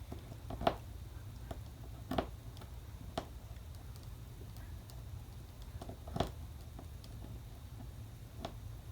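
About half a dozen light, irregular clicks of a screwdriver and tiny screws against a metal belt tip during hand assembly, over a low steady hum.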